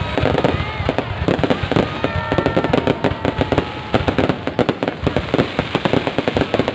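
Fireworks going off in quick succession, a dense run of bangs and crackles, with faint whistles from rising shells.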